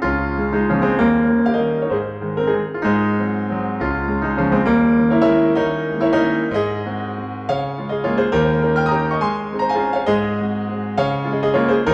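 Background piano music: a gentle keyboard piece with chords and a melody of sustained notes.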